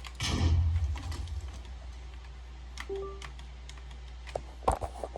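A laptop giving one short beep about three seconds in, the weird, unexplained beep it keeps repeating. Around it are scattered key clicks and a louder rumbling thump near the start, over a steady low hum.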